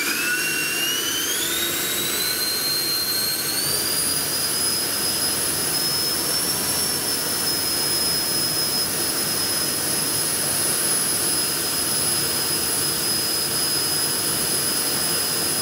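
JetFan 110 electric ducted fan (780KV motor on 14S) spooling up with a rising high-pitched whine over the first few seconds, then running steadily with a constant whine over a rush of air.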